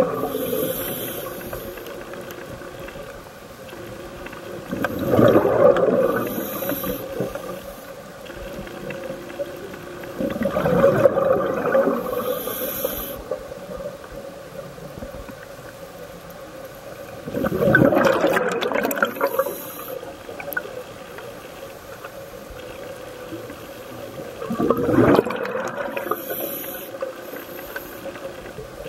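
Scuba diver breathing through a regulator underwater: a rush of exhaled bubbles about every six to seven seconds, each followed by a short high hiss of the inhale.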